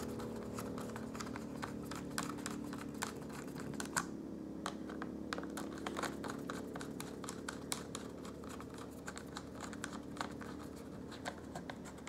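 Small screwdriver turning screws back into a laptop's bottom cover: many faint, irregular little clicks and ticks.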